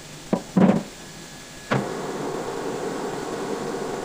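Two short metal knocks, then a metal lathe is started: a sharp clunk about two seconds in, and the spindle and chuck then run with a steady mechanical hum.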